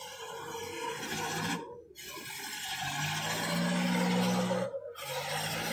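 Pulling tractor's engine working under load while a sled of stacked wooden timbers drags and scrapes across concrete, a steady rasping over the engine note, cut by two brief dropouts.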